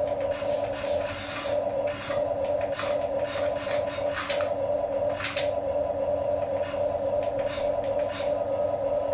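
Small RC excavator's electric gear motors whining steadily while it works its arm and bucket, with irregular scrapes and gritty crunches as the bucket drags through sand.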